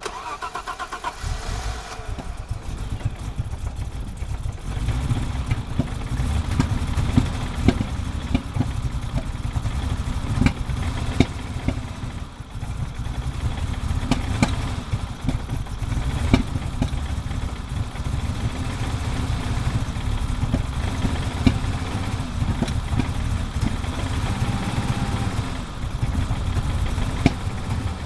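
BMW E30 325is straight-six cranked by the starter and catching within about two seconds, then idling with an uneven beat and irregular sharp pops: a cold-start misfire.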